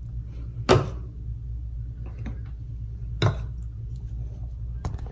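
Two sharp knocks about two and a half seconds apart, with a few faint ticks, as objects are stacked and a phone is set on them to prop it up, over a steady low hum.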